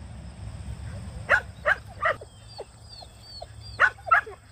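Herding dog barking in short sharp barks: three quick barks about a second in, then two more near the end, with faint high chirps between them.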